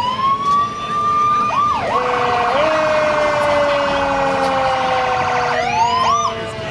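Fire truck siren. It rises in a wail, switches to a rapid warble for about three and a half seconds, then dips and rises once more before falling away. A second, steadier tone slides slowly downward beneath it.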